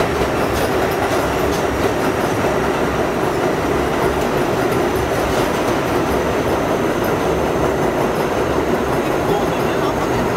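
R42 subway car running fast out of the tunnel and into a station under dynamic braking: a loud, steady roar of wheels and motors with a hum, and a few clicks as the wheels cross rail joints in the first half. Heard from the car's end door, open to the track noise.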